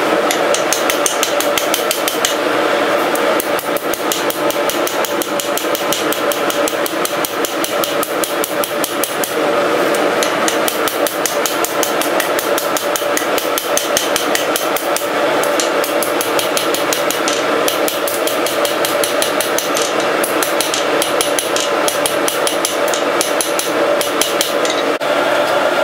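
Blacksmith's hand hammer striking a red-hot steel bar on an anvil in a quick, steady rhythm of blows, forging the end of the bar for an S hook. A steady hum runs underneath.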